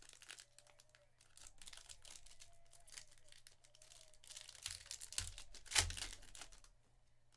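Foil trading-card pack wrapper crinkling and tearing as it is opened by hand, with cards slid and shuffled between the fingers. The crackling is busiest in the second half, with one sharp, loudest crackle shortly before the end.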